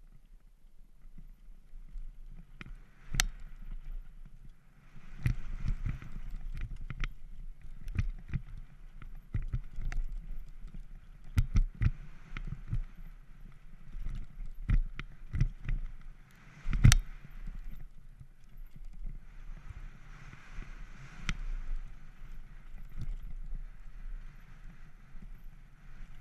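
Banshee Legend downhill mountain bike running fast down a dry dirt track: tyres rolling and skidding over dirt and loose stones, with the bike rattling and knocking sharply over bumps and landings. The biggest knock comes about 17 seconds in.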